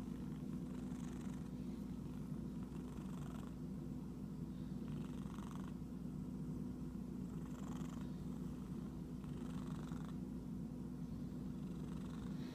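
Domestic cat purring steadily, with soft rubbing noises every couple of seconds from its fur being scratched.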